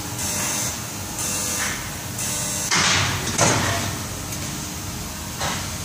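Factory machines with compressed-air lines running with a steady hum, broken by repeated hisses of air, four of them, the strongest about three seconds in with a rushing, sliding sound.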